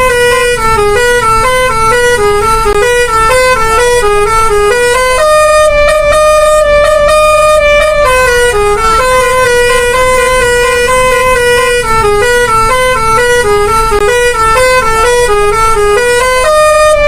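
Seven-trumpet telolet bus horn playing a tune of quick stepping notes. It jumps up to a higher held note about five seconds in and again near the end, running back down into the quick lower runs in between.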